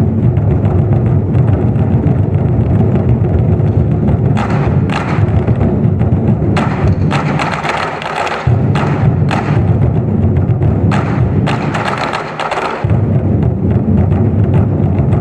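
Twenty-Four Festive Drums ensemble playing a fast, dense roll on large drums, with stretches of sharp wooden clicks from the drumsticks through the middle of the passage. The low drumming breaks off briefly twice, shortly after the middle and again a little before the end.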